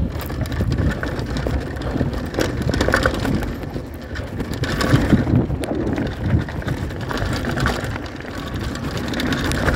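Downhill mountain bike riding over a loose gravel and dirt trail: the tyres crunch over stones, and the bike rattles and knocks over bumps along with a steady low rumble.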